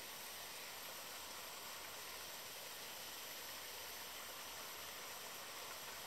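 A steady, even background hiss with a few faint high steady tones, and no distinct events.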